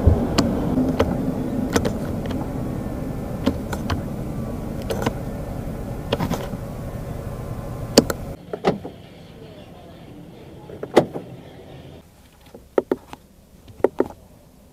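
Lynk & Co 03 power window motor running with a steady hum as the door switch is held, with a few sharp switch clicks. About eight seconds in the hum stops, and only scattered clicks follow.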